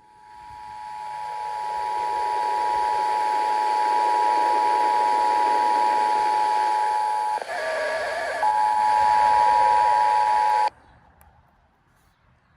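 Emergency Alert System two-tone attention signal received over the radio with a hiss of static beneath it. It holds steady, drops out for about a second near the middle, then cuts off suddenly a little before the end.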